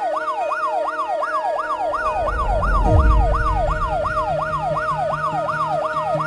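Siren sound effect in a fast yelp, its pitch sweeping up and down about three times a second, over background music. A low whoosh swells and fades about three seconds in.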